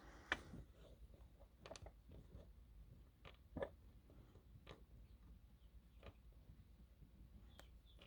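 Faint, scattered small metallic clicks and ticks, about seven in all, as the parts of a disassembled pin-tumbler lock are handled.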